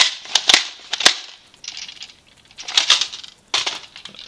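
Sharp plastic clacks and rattles in several quick clusters: a Nerf banana magazine is pushed into the magazine well of a Nerf Modulus Recon Mk II blaster and jiggled. The nub on the back of the magazine stops it from sliding far enough to lock into place.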